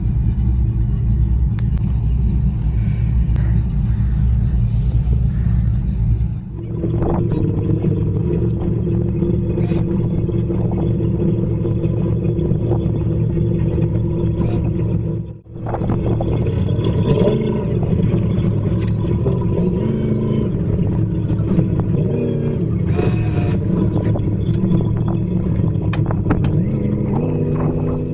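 Meridian 341 motor yacht's inboard engines running with a steady low rumble as the boat moves slowly out of its slip, the propellers churning the water.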